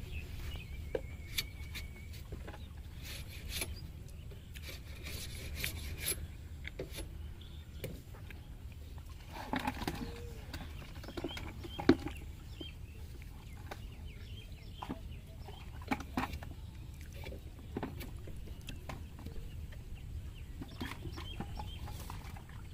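Steady low rumble of wind on the microphone, with scattered knocks and rustles from a man working a lift net and bucket on a bamboo platform over water. The loudest is a sharp knock about twelve seconds in. Faint bird calls come and go.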